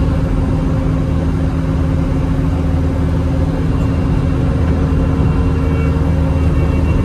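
Bobcat T650 skid-steer loader's diesel engine running steadily under load, powering a Brushcat rotary cutter, with an even low engine drone and no change in revs.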